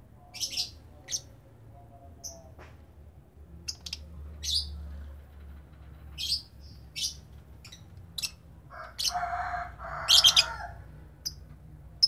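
Lovebirds chirping: short, shrill chirps scattered irregularly, with two louder, harsher calls about nine and ten seconds in. A faint low hum runs underneath.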